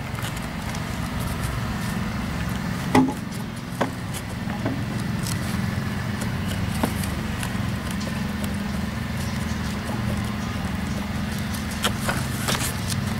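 A steady low rumble in the background, with scattered light clicks and scrapes as gloved hands press potting soil around tomato seedlings in a plastic seedling tray; the sharpest click comes about three seconds in.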